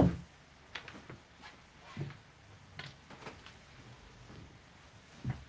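A few light, scattered clicks and taps of casino chips being handled and set down on a felt craps table layout.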